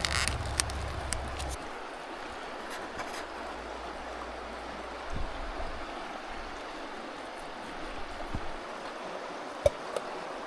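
Steady rushing hiss of outdoor ambience with a few light clicks and knocks, and a low rumble in the first second and a half.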